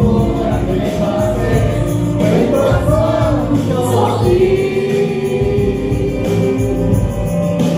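A woman singing into a handheld microphone to music, with a few men singing along.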